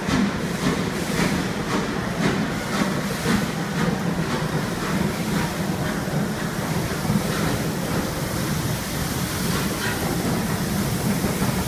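LMS Princess Coronation class Pacific 46233 'Duchess of Sutherland', a four-cylinder steam locomotive, running slowly in with its train. There is a steady low rumble and a regular beat about twice a second, which fades after about four seconds.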